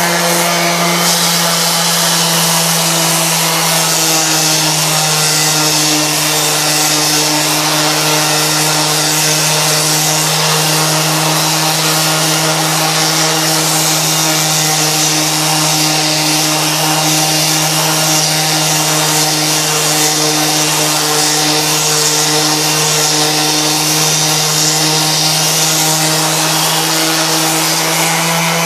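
Dexter Power 230 W random orbital sander with a 125 mm disc running while sanding a wooden log: a steady motor hum under the hiss of abrasive on wood. Its pitch settles slightly lower in the first few seconds, then holds.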